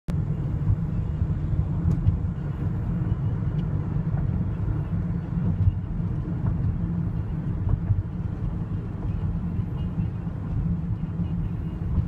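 Steady low rumble of a car on the move, heard from inside the cabin, with a few faint clicks.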